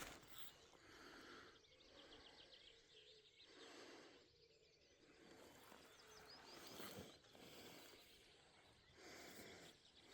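Near silence: faint ambience with a few soft, distant bird chirps.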